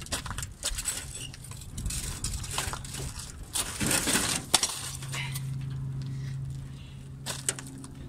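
Irregular clinks, crunches and scrapes of burnt debris and broken glass being handled inside a fire-gutted truck cab. A low steady hum comes in a little past halfway.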